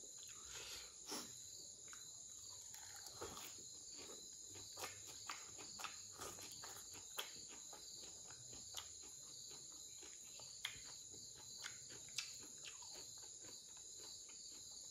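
Crickets chirring steadily, with scattered small clicks and soft taps of fingers handling leafy greens and a sticky braised pork ear.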